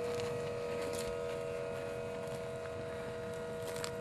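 Steady motor hum from the powered lift of a rocket launch tower, which tilts the tower and rocket upright. The hum holds an even pitch, with a few faint clicks.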